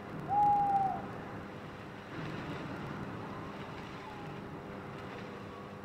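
A short, slightly falling high tone lasting under a second near the start, then a quiet, steady rushing background noise like wind.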